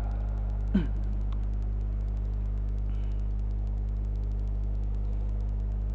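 Steady low hum, unchanging throughout, with a brief voice sound falling in pitch about a second in.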